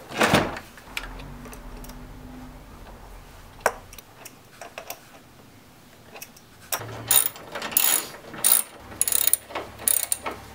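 A heavy thump just after the start as the car battery is set down into its tray, then from about two-thirds of the way in, a socket ratchet wrench clicking in quick repeated strokes while it tightens the battery hold-down nut.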